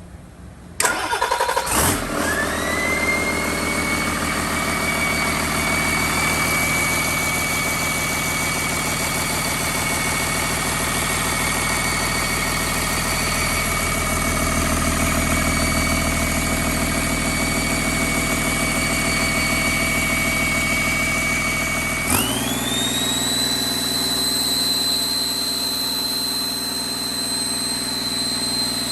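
Rebuilt Doosan DL06P diesel engine cranking and catching about a second in, then running steadily with a high whine that rises and settles in pitch. About 22 seconds in the engine speed steps up and the whine jumps to a higher pitch and holds there.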